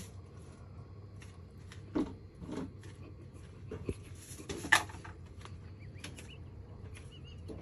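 Scattered light knocks and clinks of kitchen things being handled at a counter, about half a dozen in all, the sharpest about two-thirds of the way through, over a faint steady room hum.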